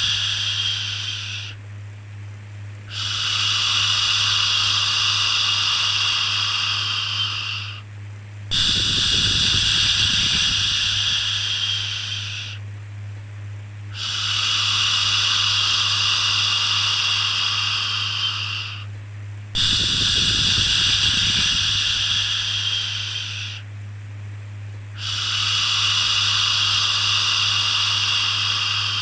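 Soothing shushing "shhh", each hiss held about four seconds and repeated with short pauses between, over a steady low hum.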